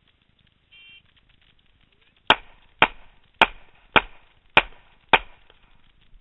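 A short electronic beep, typical of a shot timer's start signal, then about a second and a half later six handgun shots fired at a steady pace, a little over half a second apart.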